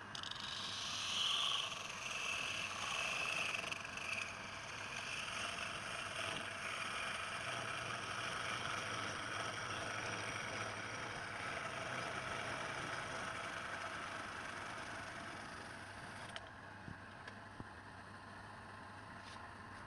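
Wood lathe switched on and running, with the steady hiss and scrape of a tool working the spinning wood. It starts suddenly and eases off a little about three-quarters of the way through.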